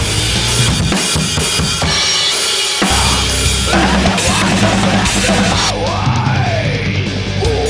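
Heavy metal music: a drum kit played hard for about the first three seconds, then electric guitar with sliding, bending pitches over a steady low note.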